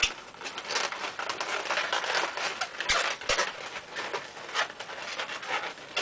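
Qualatex 260Q latex modelling balloons rubbing against each other as they are twisted and pressed together by hand, a run of short scratchy strokes. About three seconds in there are two soft knocks.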